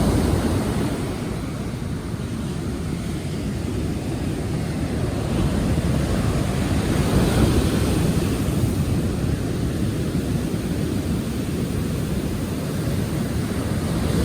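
Steady wash of surf with wind rumbling on the microphone.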